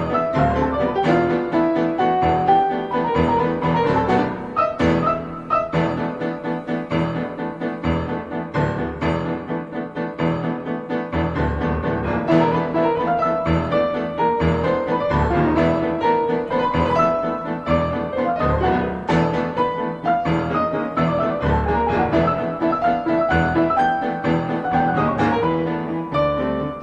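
Background music led by piano, with a steady flow of notes and a low bass line.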